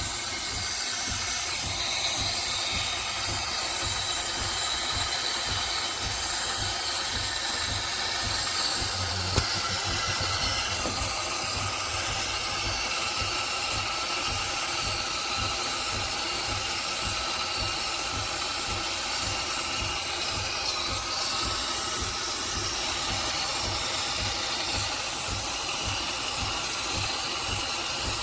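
De'Longhi Magnifica Plus espresso machine steaming milk through its automatic frother: a steady steam hiss with the pump pulsing rapidly underneath, and a single sharp click about nine seconds in.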